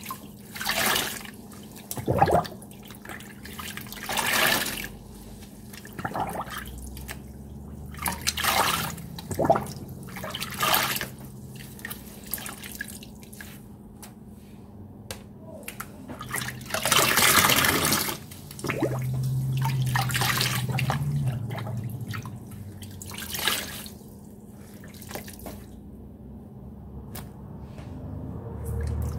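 Wet sponges squeezed and pressed in shallow water in a stainless steel sink, squelching and splashing in separate bursts every second or two, with a longer, louder splash about two-thirds of the way through. The sponges are being rinsed of Ajax dish-soap paste.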